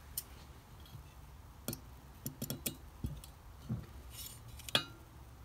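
Scattered light metallic clicks and clinks of steel calipers being handled and set against the aluminium supercharger housing to measure how deep the needle bearing sits. The sharpest click comes near the end, just after a brief rustle.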